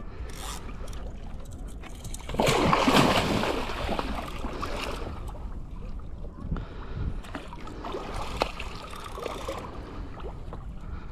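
A hooked wels catfish splashing at the surface beside the boat: a loud splash about two seconds in that lasts about two seconds, then quieter water noise.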